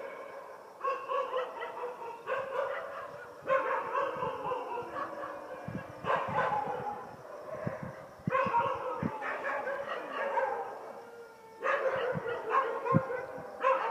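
Several dogs barking outside at night, in overlapping bouts that start afresh every couple of seconds.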